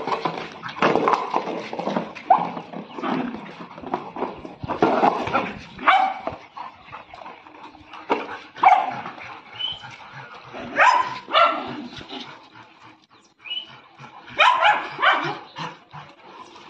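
Several dogs barking and yipping during play, in short loud bursts every second or so, with a brief lull a little past the middle.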